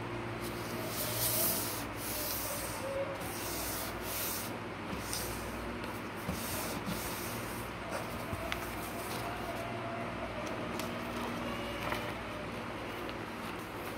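Fingers pressing and sliding along a sheet of paper to crease its folds: a series of short, dry rubbing strokes, most of them in the first half, with a steady low hum behind.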